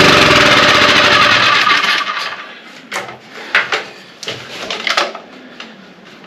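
Small gasoline engine of a Champion portable generator running loudly for about two seconds, then dying away and stopping, followed by several sharp knocks.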